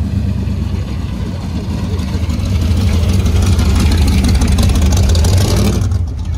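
Car engine running with a deep, steady exhaust note that grows louder from about two and a half seconds in, then drops away suddenly near the end.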